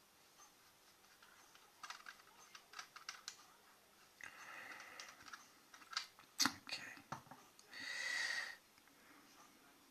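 Scattered light clicks and taps of small hard parts being handled, like vape tanks and a mod being picked up and set down, with two short breathy hisses, one about four seconds in and a louder one about eight seconds in.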